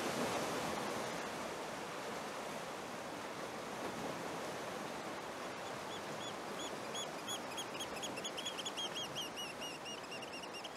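Steady wash of sea surf, with a bird calling a series of short, high chirps from about halfway through that come quicker near the end.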